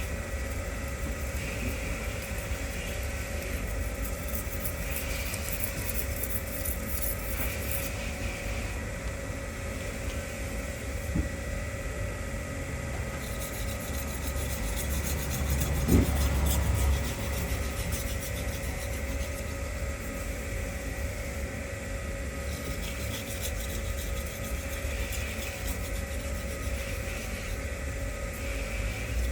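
A kitchen knife blade being stroked back and forth on a finishing whetstone with very light pressure, a soft rhythmic scraping with strokes roughly a second apart, over a steady low hum. A single dull knock about halfway through.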